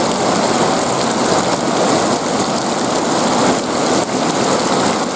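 Heavy rain falling onto shallow standing water and wet pavement, a dense, steady patter and hiss.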